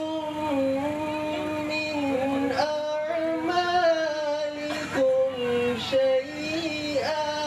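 A man reciting the Quran in Arabic in a melodic chanting style, holding long, ornamented notes, amplified through a microphone.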